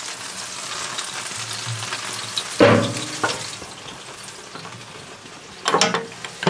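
Pork spare ribs sizzling on the grates of an offset reverse-flow smoker cooking hot at about 300 degrees, a steady crackling hiss of fat and juices. A loud clank with a ringing tail comes about two and a half seconds in, a lighter knock follows, and there is another loud clank near the end.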